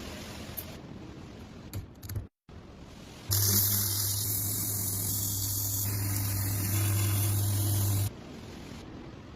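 Steady hissing spray with a strong low machine hum under it, starting abruptly a few seconds in and cutting off sharply near the end; quieter hiss before and after.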